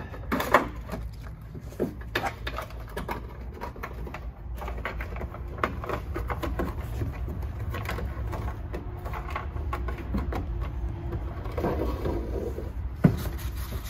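Scattered clicks, knocks and rubbing as a tow mirror is handled and set against a Chevrolet Silverado's door, with a sharp knock about half a second in and another near the end, over a steady low hum.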